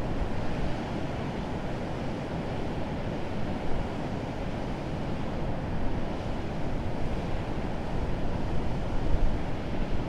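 Urriðafoss waterfall: a steady, full rush of water pouring over rapids, heaviest in the low end, with gusts of wind buffeting the microphone.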